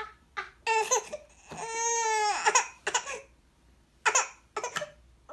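Infant crying in short fussy bursts, with one long wail about one and a half seconds in, in protest at the taste of her first spoonfuls of pureed green beans.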